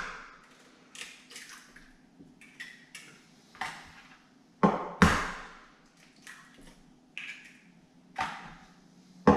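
Eggs being cracked one after another over a plastic jug: a series of separate sharp taps and shell cracks, loudest about halfway through and just before the end.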